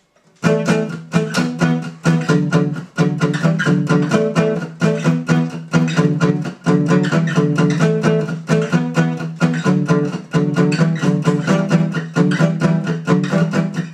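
Instrumental opening of a song: a fast, even run of plucked notes over a steady low note, starting about half a second in.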